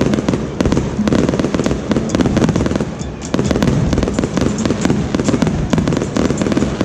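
Fireworks display: shells bursting with a dense run of sharp cracks and pops in quick succession, easing briefly about three seconds in.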